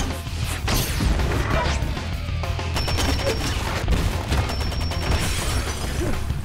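Battle sound effects: repeated rifle gunfire mixed with impacts, crashing and shattering debris, over a music score.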